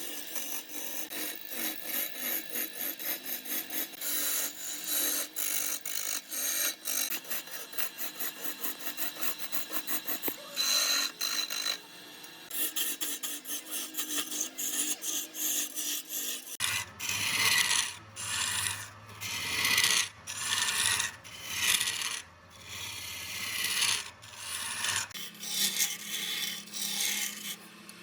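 Rhythmic scraping and rubbing strokes of a tool or abrasive on wood, quick and even at first. About halfway through a low steady hum comes in, and the strokes turn slower and louder.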